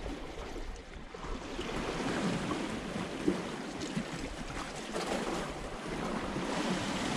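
Sea washing against rocks with wind buffeting the microphone, and one short sharp click a little over three seconds in.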